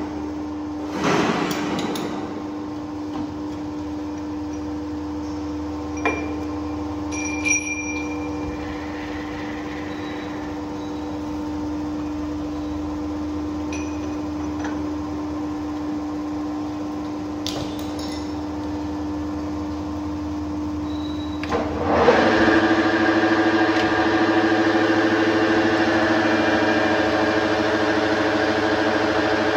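Metal lathe running with a steady hum, with a few light metallic clicks and clinks. About 22 seconds in it becomes louder and fuller, and it keeps running steadily.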